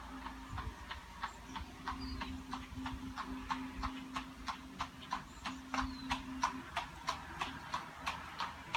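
Horse's hooves clip-clopping at a steady walk as it pulls a buggy, about three strikes a second and growing louder as it comes nearer. A bird gives a few short falling chirps.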